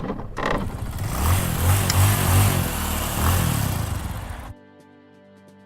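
A motor engine revving loudly with a rough, noisy sound. About four and a half seconds in it cuts off suddenly into quiet music with sustained notes.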